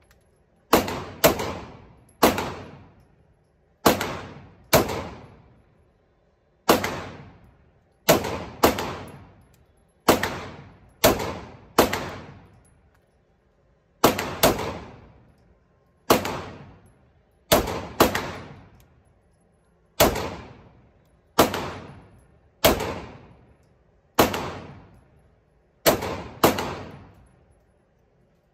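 Semi-automatic pistol fired at an indoor range: about twenty shots, some single and some in quick pairs, every second or so. Each crack is followed by a reverberant echo from the concrete range.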